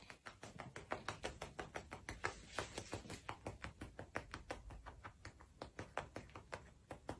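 Faint light tapping clicks, several a second and uneven in rhythm.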